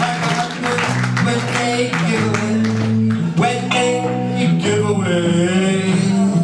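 Two acoustic guitars playing a blues song, with a man singing over them.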